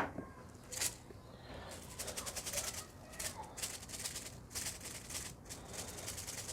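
A sharp knock, then a pepper mill grinding over the potatoes: a long run of fine, rapid clicks.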